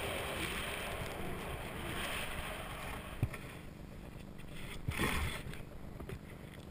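Snowboard gliding and turning through deep powder snow, a steady rushing hiss of board and spray. A sharp knock comes about three seconds in, and a louder rush of snow about five seconds in.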